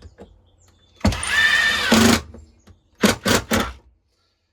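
Power drill run in trigger pulls: one run of about a second with a steady motor whine, then three quick short blips about three seconds in.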